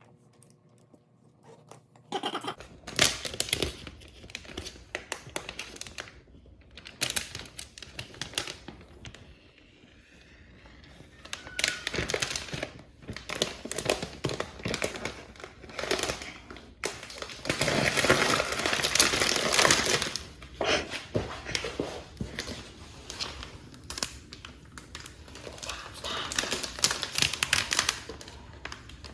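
Packaging crinkling and rustling as it is handled, with irregular bursts of tearing, loudest for a few seconds about two-thirds of the way through.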